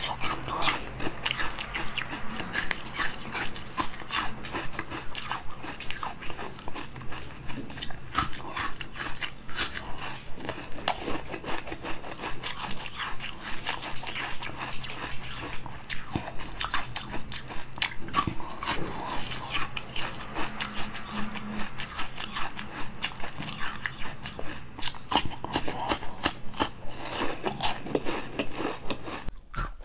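Biting and chewing of a firm green spiral-shaped food, with many short crunches and wet mouth clicks in an irregular run.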